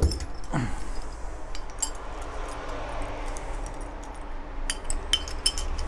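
Light metallic clicks and clinks of small night latch parts (cylinder, keys and connecting bar) being handled, in scattered short taps, more of them near the end.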